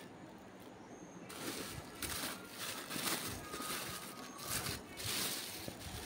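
Crinkling and rustling of plastic packaging being handled, in several bursts after a quiet first second.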